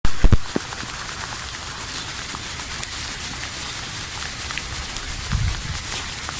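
Rain falling on wet pavement: a steady hiss with many small scattered drop ticks. A loud thump sounds right at the start, and a brief low rumble about five seconds in.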